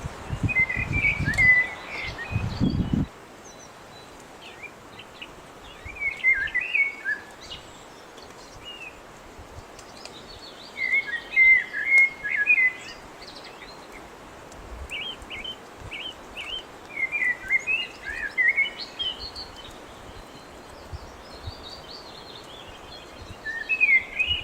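A songbird singing short phrases of quick chirping notes, one every few seconds, over steady woodland background noise. Low dull thumps come in the first few seconds.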